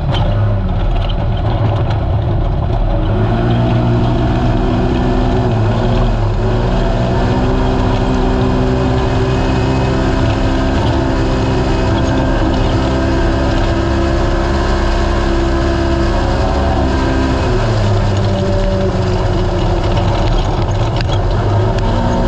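Naturally aspirated race UTV engine running hard at high, near-steady revs over rough desert, with a constant rush of wind and terrain noise. The engine pitch rises a few seconds in, dips briefly, drops for a moment near the end and climbs again.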